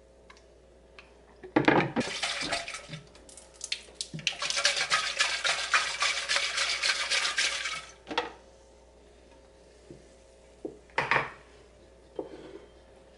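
Water splashing and sloshing inside a plastic Vitamix blender jug as it is filled and swirled at the sink to rinse out leftover smoothie, lasting several seconds. A few short knocks follow as the jug is handled.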